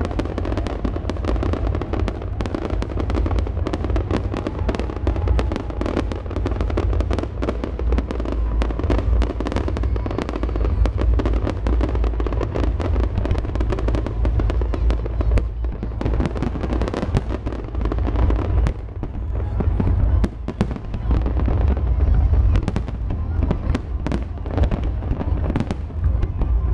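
Fireworks display: a dense, unbroken barrage of bangs and crackling from bursting shells, over a deep rumble.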